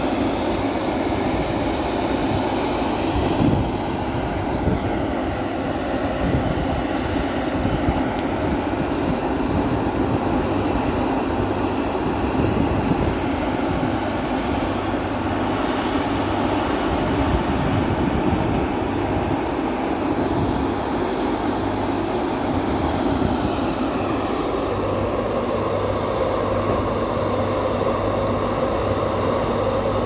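Large engine of construction machinery running steadily, a continuous drone with no breaks.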